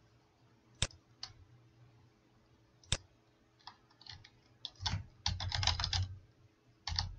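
Two single mouse clicks in the first three seconds, then a quick run of keystrokes on a computer keyboard typing a word, densest about two thirds of the way in, with a last keypress near the end.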